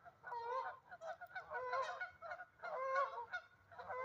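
Canada geese honking, a string of short, repeated honks from several birds, some overlapping.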